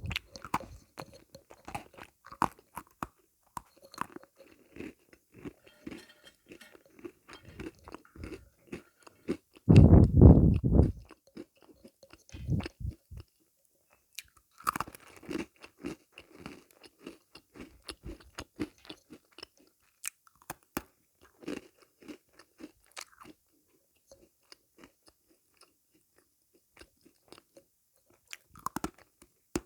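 Sweets being bitten and chewed close to the microphone: many short crunches and crackles, with the loudest crunching burst about ten seconds in and only scattered small clicks in the last third.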